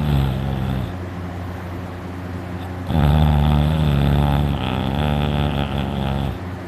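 A person snoring loudly in sleep: a short snore right at the start, then a long, low, buzzing snore from about three seconds in that lasts over three seconds, made by the uvula vibrating.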